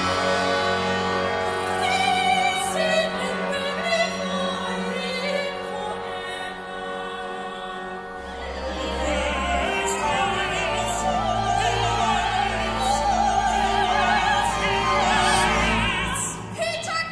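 Opera singing with chamber orchestra: voices sing over held string notes. From about eight seconds in, a low sustained bass note enters, with strongly vibrato operatic voices above it, and the music breaks off near the end.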